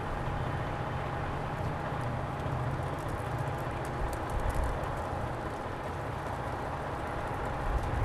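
Street ambience: a steady low rumble of vehicle engines with a faint, steady high hum over it.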